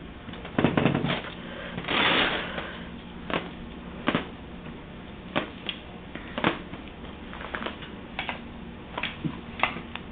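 Irregular sharp clicks and taps, a few a second at most, with a short rustling burst about two seconds in, over a steady low hum.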